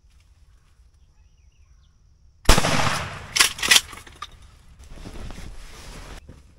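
A single loud shot from a Mossberg 20-gauge shotgun about two and a half seconds in, dying away over about a second. Two sharp clacks follow close together, then rustling.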